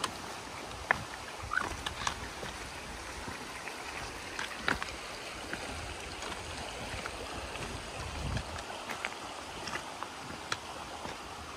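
Shallow, stony river flowing with a steady rush, over which come irregular clicks and crunches of footsteps on loose river cobbles.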